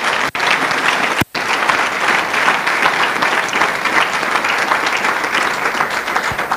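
A congregation applauding: many hands clapping at once in a dense, steady patter, with the sound cutting out briefly twice in the first second or so.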